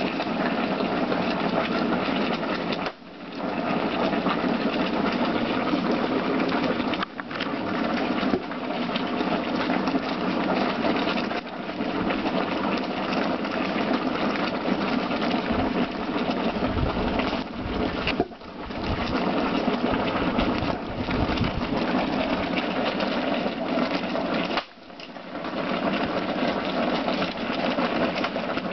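Large cooking pot of ayahuasca decoction at a rolling boil over an open wood fire: a steady, dense bubbling rush. The sound drops out sharply for a moment about five times.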